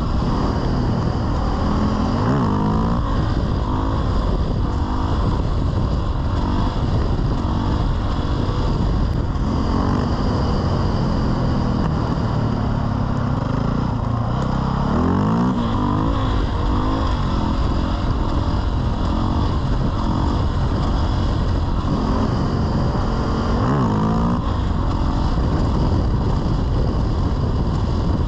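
Motorcycle engine being ridden, its pitch rising and falling several times as it revs up and eases off, under a steady rush of wind noise.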